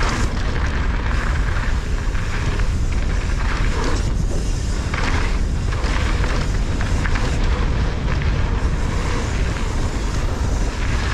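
Wind rushing over the microphone of a camera on a mountain bike riding fast down a dirt trail, with a steady low rumble from the tyres and repeated knocks and rattles as the bike goes over bumps.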